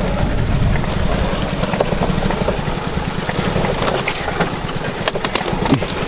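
Car engine running at low speed while the car is driven off-road, with a steady low rumble and scattered clicks and knocks in the second half.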